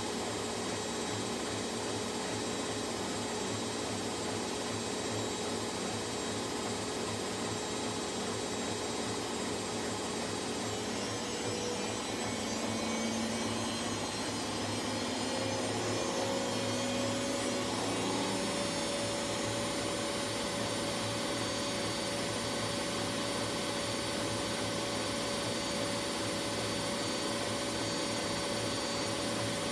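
Whirlpool AWS 71200 front-loading washing machine in its 1200 rpm final spin: a steady motor whine and drum hum. Partway through, the whine rises in pitch and gets a little louder as the drum speeds up.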